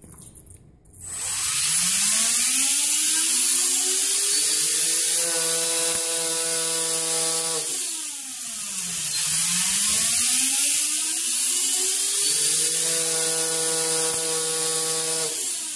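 Align RC helicopter's drivetrain and tail rotor spinning up with a rising whine, holding speed for a few seconds, winding down, then spinning up and down a second time. The carbon tail boom is running without its centre bearing, and the tail vibrates.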